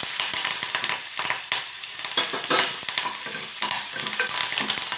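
Hot oil sizzling and crackling as a tempering of dals, mustard seeds, green chillies and curry leaves is stirred with a spatula in a pressure cooker. Many small pops and spatula scrapes run over the steady sizzle.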